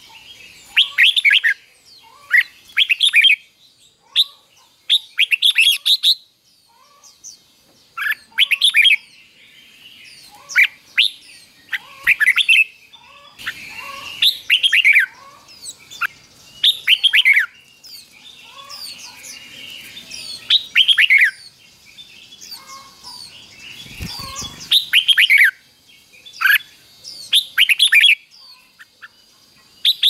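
Red-whiskered bulbul singing: short bursts of quick, falling whistled notes, repeated every second or two.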